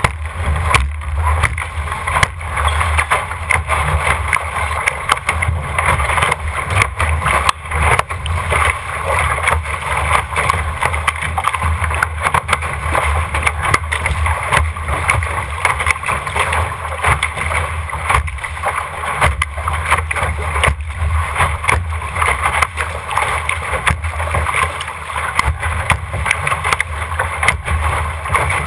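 RS600 dinghy's hull rushing through choppy water, with spray sheeting over the foredeck and frequent sharp slaps as the bow meets the waves. Wind rumbles on the microphone underneath.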